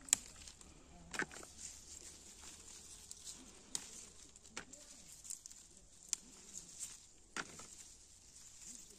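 Faint, irregular light clicks and taps, a few seconds apart, over quiet outdoor background: handling noise from the plastic bowl of picked peppers and beans, or from the phone holding it in view.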